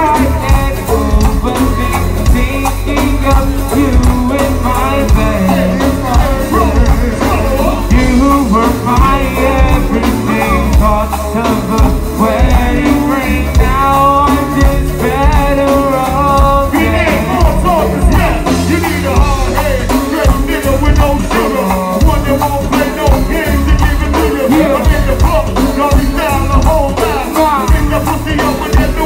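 Live band playing loud amplified music, with several singers carrying the vocals over electric guitar, keyboards and drums. A heavy bass beat runs underneath.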